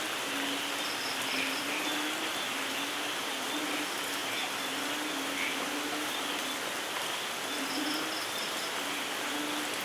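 Steady rain falling, with no thunder. Over it, short low calls repeat about once a second, and two short runs of high insect-like chirps come about a second in and again near the end.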